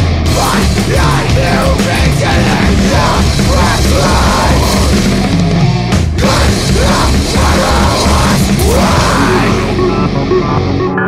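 Heavy metal song at full band: distorted guitars, bass and pounding drums under harsh, shouted vocals.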